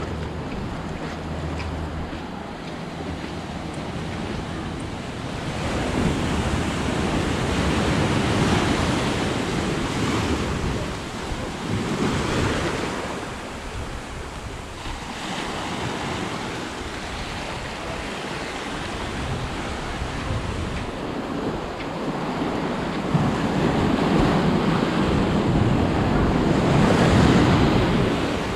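Ocean surf washing up a sandy beach, swelling and falling in several surges and loudest near the end as whitewater rushes in close by. Wind rumbles on the microphone.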